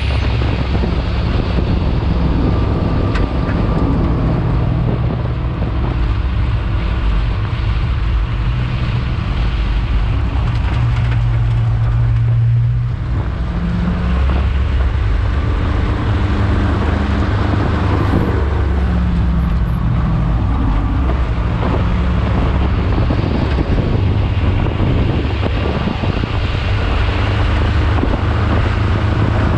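Race car engine running hard at track speed, heard on board with heavy wind rush over the microphone; the engine note shifts pitch through the run and drops off briefly about halfway through as the driver lifts, then picks up again.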